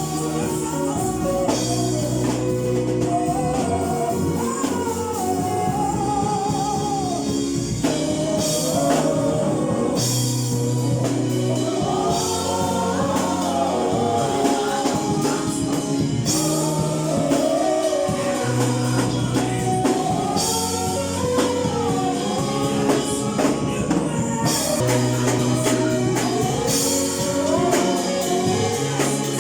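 A choir singing a gospel song with band accompaniment: a melodic bass line under the voices and steady percussion.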